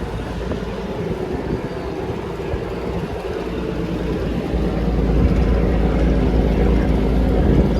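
River ferry's engine running with a steady low hum, growing louder about halfway through.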